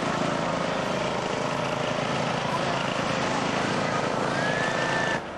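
Modified racing lawn mower engines running loud. One revs up in a rising whine near the end, then the sound cuts off suddenly.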